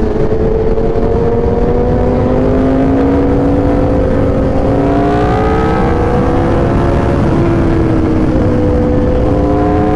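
Aprilia RSV4 1100 Factory V4 with an SC Project exhaust pulling at speed. Its note climbs slowly, eases off a little about seven seconds in, then climbs again, over a steady low rush of wind.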